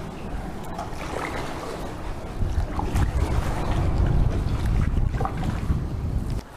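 Kayak paddle strokes: the blades dipping and splashing in the water along the hull. From about two and a half seconds in, a heavy low wind rumble on the microphone joins in, cutting off sharply near the end.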